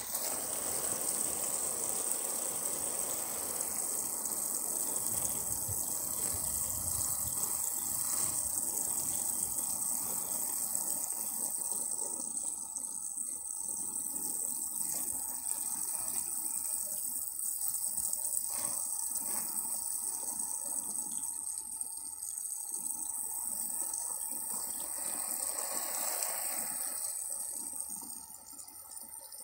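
Water gushing steadily onto plants as they are watered, a continuous splashing hiss that drops a little in level near the end.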